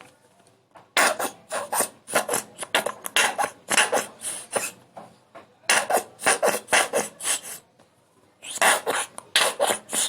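Quick rasping, scratching strokes, several a second, in three runs with short pauses between.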